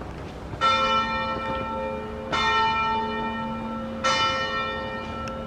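A church bell tolling: three slow strikes about every second and three-quarters, each ringing on and fading slowly.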